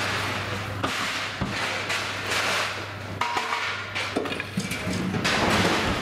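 Knocks and clanks of bumper car ride parts being handled as the ride is taken down, a few sharp hits among scraping and rustling, over a steady low hum.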